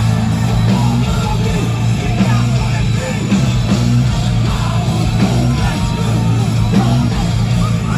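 Heavy metal band playing live at full volume: distorted guitars chugging low riffs over bass and drums.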